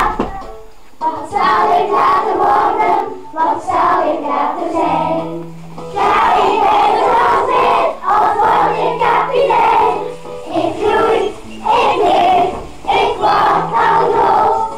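A group of young children singing an action song together, in phrases broken by short pauses.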